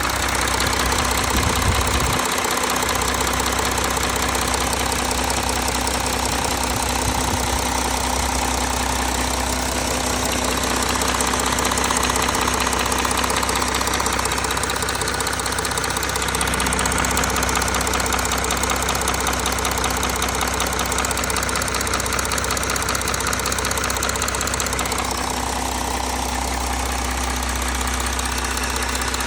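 Audi A4 3.0 TDI V6 diesel engine (CRTC) running steadily while still cold, with its oil below 60 °C.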